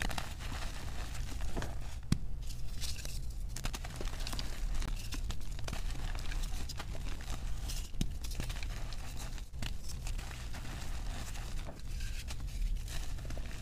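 Hands crushing and crumbling blocks of dyed gym chalk: continuous gritty crunching and powdery crumbling. A few sharper snaps stand out where pieces break, about two seconds in and again near eight seconds.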